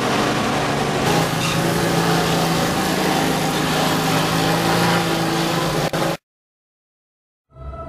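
Steady engine noise of road traffic with a low hum, picked up by the camera's microphone, which cuts off abruptly about six seconds in. After a second of silence, music begins to fade in at the very end.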